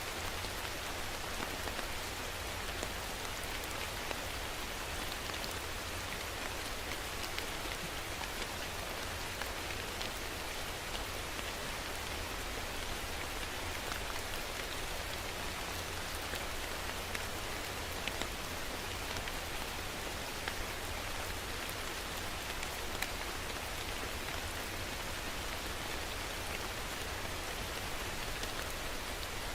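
Heavy rain falling steadily, with the patter of many individual drops over an even hiss and a low rumble underneath.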